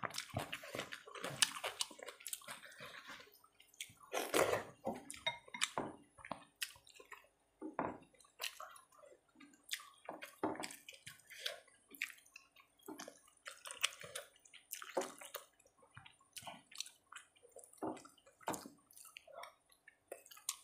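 Close-miked wet eating sounds: squelching as rice is mixed with potato and egg curry by hand, and chewing, in many irregular short clicks and pops.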